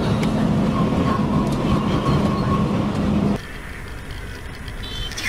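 Loud, steady road and engine rumble of a vehicle driving at speed, with a steady low hum. About three and a half seconds in it cuts abruptly to a much quieter steady road noise.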